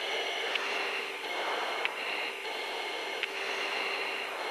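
Steady hiss of a chase aircraft's cockpit intercom and radio channel between transmissions, with a faint steady hum and a few light clicks.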